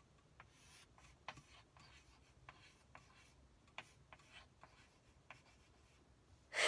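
Faint, short strokes of chalk on a chalkboard: about eight separate scratches and taps, scattered unevenly.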